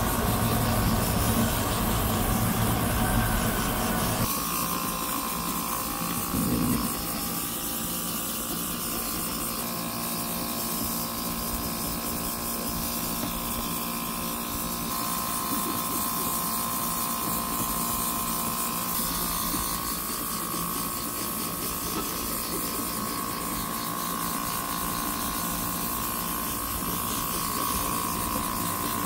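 Airbrush spraying a spatter coat of thick paint: a steady hiss of air over the hum of a small compressor, louder and fuller for about the first four seconds, then even.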